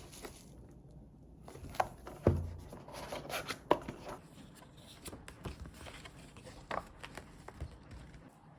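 Scattered light taps and clicks of objects being handled, with a louder knock a little after two seconds in.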